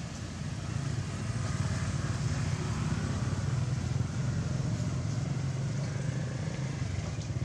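A small engine running steadily off-screen, a low pulsing hum that gets a little louder about a second in.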